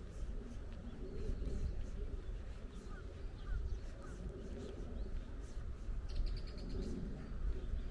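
Outdoor ambience of small songbirds: a few short chirps and, about six seconds in, a brief rapid high trill. A steady low rumble, like wind on the microphone, runs underneath.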